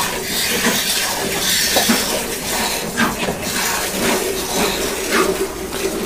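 Milk squirting from a Murrah buffalo's teats into a metal bucket during hand milking: a continuous run of quick squirts hitting the milk and the pail.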